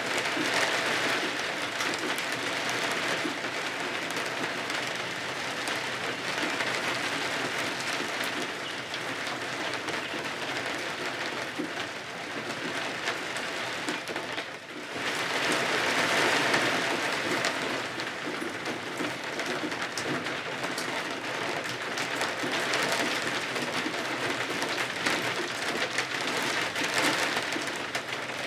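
Steady rain falling, swelling and easing in waves, with a brief lull about halfway through.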